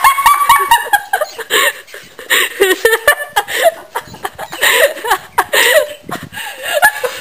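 A woman laughing hard, in repeated short bursts.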